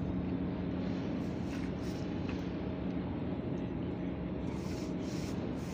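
A steady engine-like hum with a low drone from a motor running nearby. It weakens after about three seconds. Under it are faint scrubbing strokes of a stiff brush working SBR bonding slurry into wet concrete.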